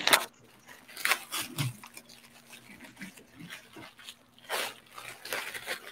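Faint, scattered clicks and rustles of small objects being handled close to a microphone, over a faint steady hum.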